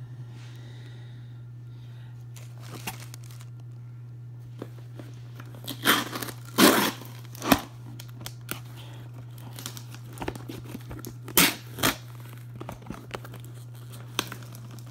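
Packing tape being pulled and torn off a tightly taped package, in short rasping strips that come in two clusters, about six to seven and a half seconds in and again around eleven seconds in, with scattered smaller crackles between. A steady low hum sits underneath.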